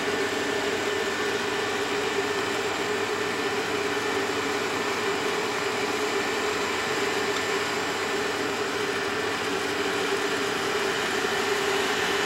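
Steady mechanical hum with a droning mid-pitched tone from the open cable lift running in the volcano's shaft; it cuts off abruptly at the end.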